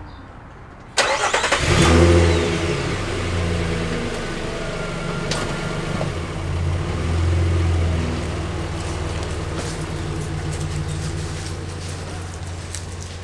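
Nissan Frontier pickup's engine starting about a second in, then running and pulling away, rising twice and slowly fading near the end.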